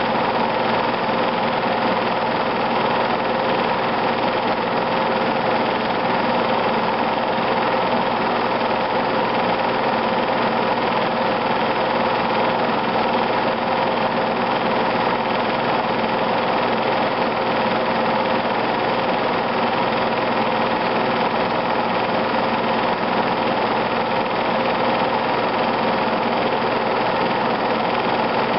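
Steady whir and hum of a home-movie film projector running, a constant mechanical drone with a fixed tone.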